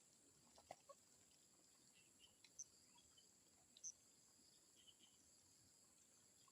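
Near silence outdoors: a faint, steady, high insect hum, with a few short high chirps about two and a half and four seconds in, and a couple of faint clicks about a second in.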